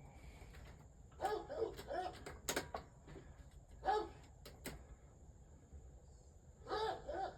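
A dog barking in short bouts of two or three high yips, with a few sharp clicks in between.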